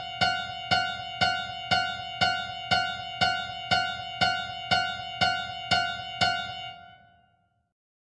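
A single high piano note struck over and over at an even pace of about two strikes a second, each strike ringing briefly before the next. The strikes stop near the end and the last note rings away.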